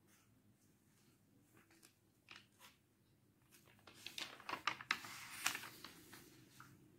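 A sheet of paper being handled: a few faint ticks, then a burst of crinkling and sharp clicks about four seconds in that lasts a couple of seconds.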